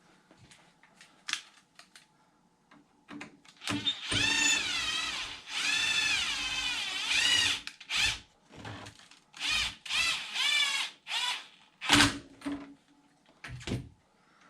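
Cordless power drill/driver running in trigger-controlled bursts, its motor pitch rising and falling as the trigger is feathered: two longer runs, then several short blips. A few light clicks of parts being handled come before it.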